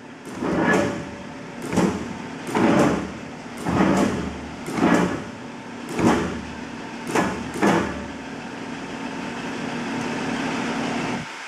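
100-ton Rousselle double-crank gap frame press jogged in inch mode: about eight short bursts, roughly a second apart, as the clutch engages and releases the ram in small steps, over a steady low hum from the running drive. For the last few seconds it runs more evenly, then stops just before the end.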